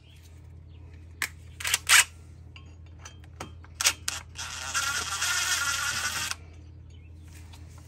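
Several sharp clicks as a cordless screwdriver's Torx bit is fitted into the brake rotor's set screw. About halfway through, the driver runs for nearly two seconds, turning the set screw out of the hub, then stops.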